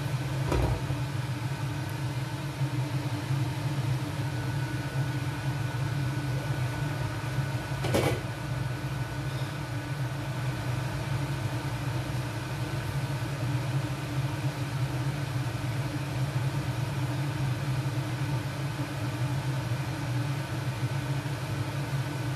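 Steady low hum of a running kitchen appliance, with a thin high whine joining about four seconds in. A short clink about half a second in and a sharp knock about eight seconds in.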